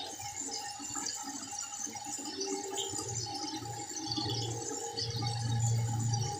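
Manual toothbrush scrubbing teeth, a wet, irregular scratching. A low hum comes and goes from about three seconds in, loudest near the end.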